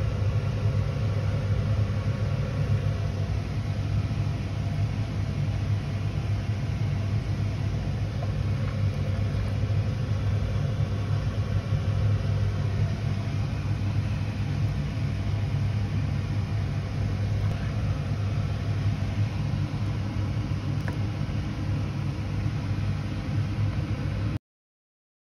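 A motor running with a steady low hum and an even whirring noise; it cuts off suddenly near the end.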